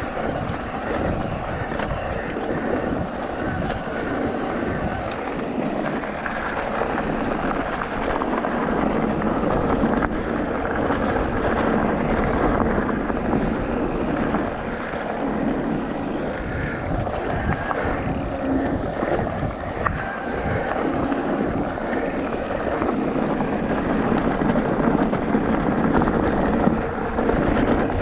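Off-road motorcycle engine running steadily as it is ridden along a dirt trail, its note rising and falling a little with the throttle.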